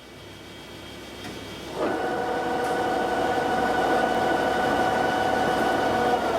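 TOS SUI 40 lathe starting up about two seconds in: the whine rises quickly to a steady pitch and runs evenly at speed, then begins to wind down at the very end.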